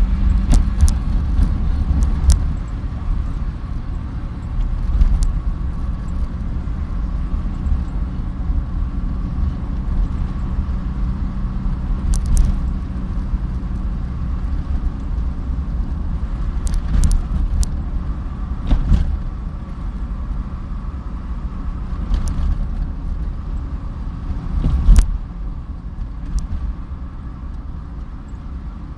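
A car driving along a road: a steady low engine and tyre rumble, broken by scattered short clicks or knocks, the loudest about four seconds before the end.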